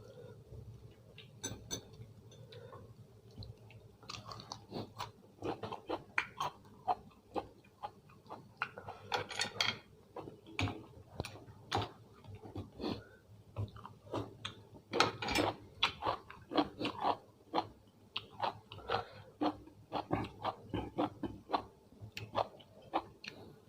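A person chewing food close to the microphone: an irregular run of short, clicky bites and mouth sounds, a few a second.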